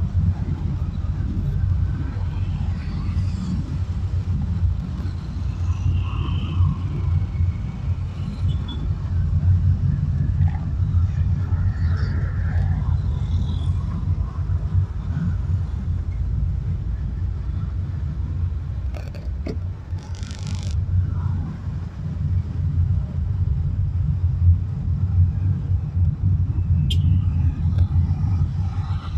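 Steady low road and engine rumble from inside a moving car in city traffic, with faint sounds of passing vehicles; a brief hiss about two-thirds of the way through.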